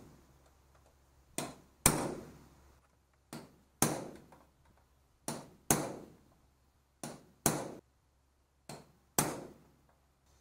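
Hammer striking a punch held against the rivets of a school bus's window frame, driving out rivets whose heads have been ground off. Five pairs of blows, each a light tap followed about half a second later by a harder, ringing strike.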